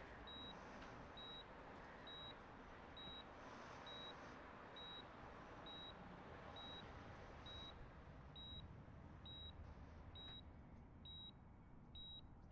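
Faint electronic beeping from medical equipment: a short high beep about once a second, steady and even, over quiet room hiss.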